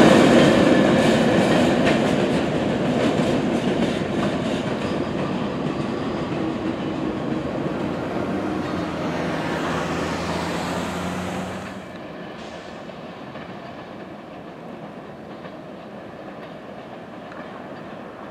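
Empty grain hopper cars of a freight train rolling past, wheels clicking over the rail joints, the sound fading as the last cars move away. About twelve seconds in it drops suddenly to a faint, steady rumble of the train in the distance.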